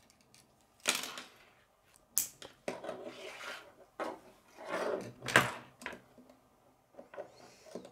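Plastic K'nex rods and connectors clicking and clattering as they are handled and snapped together on a wooden tabletop: a handful of separate clicks and short rattles, the loudest about five seconds in.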